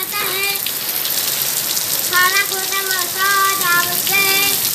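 Heavy rain pouring down, a dense steady hiss. From about two seconds in, a high voice speaks a few times over it.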